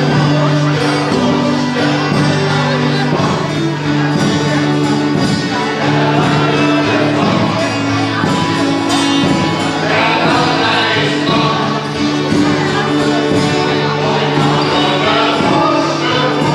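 Live band playing a carnival sing-along song with a lead singer, and the audience in the hall singing along with it.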